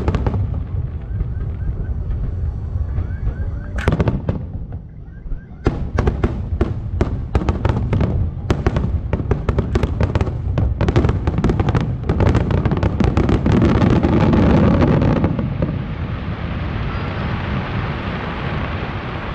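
Aerial fireworks shells bursting: scattered bangs at first, then from about six seconds in a rapid, dense barrage of explosions that stops about fifteen seconds in, leaving a steady noisy wash.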